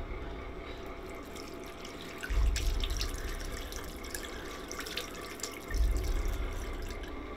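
Water running from a bathroom washbasin tap, with scattered splashes and drips as someone washes at the sink. Two deep low booms, the loudest sounds, come about two and a half and six seconds in.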